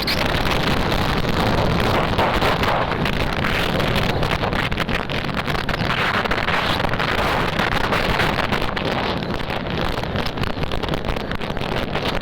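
Steady wind rush buffeting the microphone of a moving motorcycle, with road and engine noise underneath.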